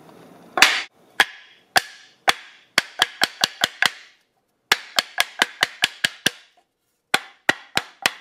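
Loud sharp claps: four single ones about half a second apart, then quick runs of about five a second with short pauses between the runs.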